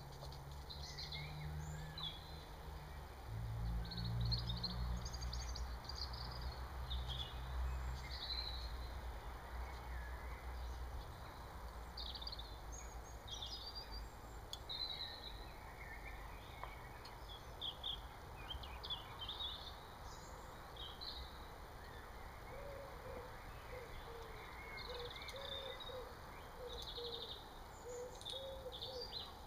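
Garden birdsong: small songbirds chirping and trilling again and again, with a lower repeated bird call joining near the end. A low background rumble runs under the first ten seconds or so, then fades.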